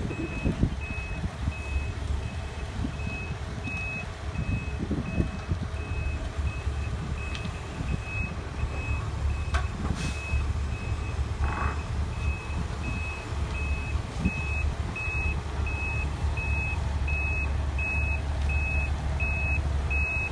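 Reversing alarm on a Sumitomo ST500M truck crane beeping steadily, about two beeps a second, over the low rumble of the crane's diesel engine as it backs up. The beeps grow louder near the end.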